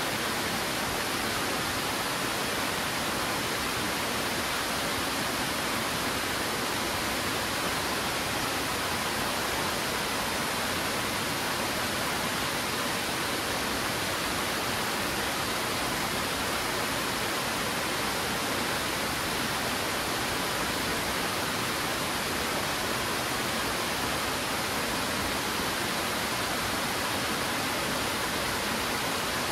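Twin Falls, a waterfall cascading down rock ledges, making a steady, even rush of falling water with no breaks or changes.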